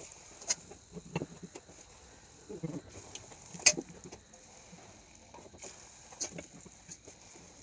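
Puris deep-frying in a wok of hot oil, with a faint sizzle and crackle. Scattered light clicks come from a steel skewer tapping the wok and the colander, the sharpest a little before four seconds in.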